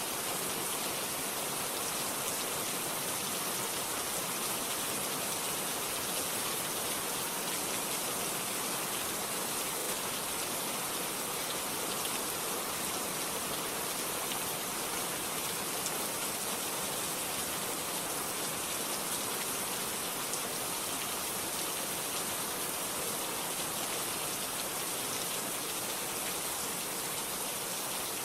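Steady rain falling on a surface, an even hiss of many raindrops with no thunder.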